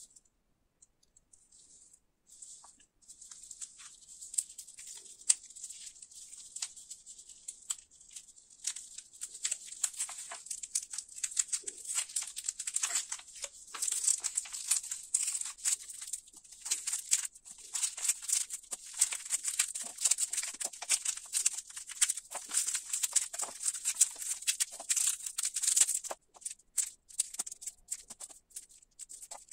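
Foil-lined paper wrapper of a roll of Halls candies crinkling and tearing as it is peeled open by hand, a dense run of crackles. Near the end it thins out to sparser clicks and crinkles.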